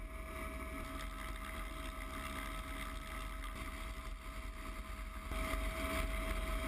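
Helicopter hovering with a sandbag slung beneath it: steady engine and rotor noise with a constant whine, growing slightly louder about five seconds in.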